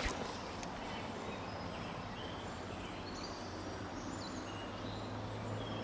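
Small birds chirping in short high calls over a steady rushing outdoor background, with one sharp click right at the start.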